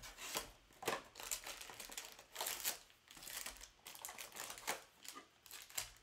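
Trading-card packs being handled: plastic wrappers crinkling and rustling in an irregular run of crackles, with cards shuffled in the hand.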